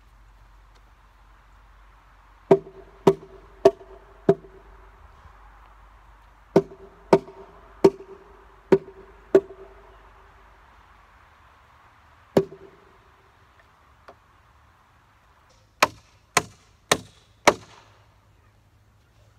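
Hammer blows driving nails into the wooden posts and boards of a shed frame: a run of four blows, then six, then a single one, each with a short ringing pitch, then near the end four sharper blows without the ring.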